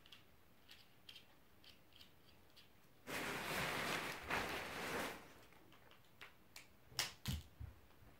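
Deflated nylon inflatable fabric rustling for about two seconds as it is lifted and shaken out, starting about three seconds in. Light clicks of a plug and cord being handled come before it, and two sharp knocks come near the end.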